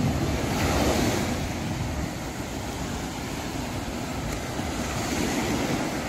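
Ocean surf breaking and washing up a sandy beach, the sea running choppy, with wind buffeting the microphone.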